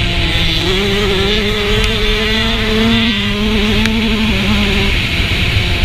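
Motocross dirt bike engine running under throttle, its pitch stepping up about half a second in and dropping about three seconds in, with a steady hiss over it.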